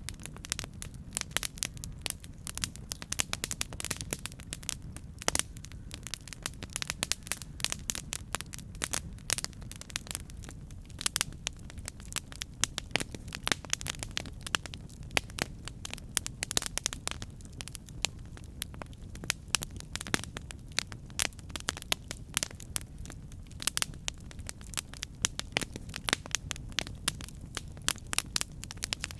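Campfire burning, crackling with frequent sharp pops and snaps of wood over a steady low background noise.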